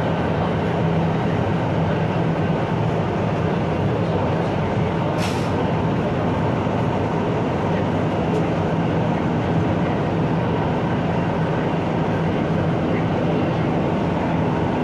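Steady running noise inside the cabin of an MTR South Island Line S-train car travelling between stations, with a constant low hum and whine from the running gear. A brief high hiss comes about five seconds in.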